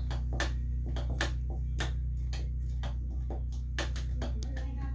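Steady low hum of a running portable generator, with a string of irregular sharp clicks and taps over it, a few each second.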